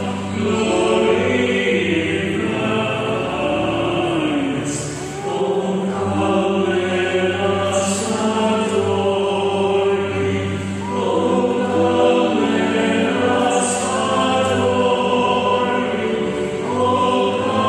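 Church choir singing the entrance hymn of a Mass, sustained sung phrases over steady low held notes.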